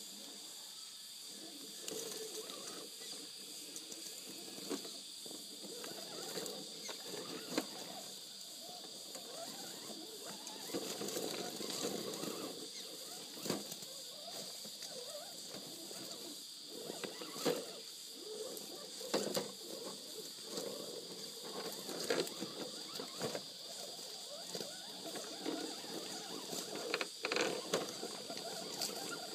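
Small electric RC rock crawlers creeping over rocks: motor and gears whirring unevenly, with tyres scrabbling and many sharp clicks and knocks of rock and chassis. A steady high-pitched tone runs under it all.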